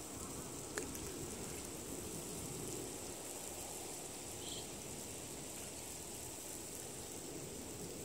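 Outdoor ambience: a steady high-pitched insect drone with a low wind rumble on the microphone, and one faint click about a second in.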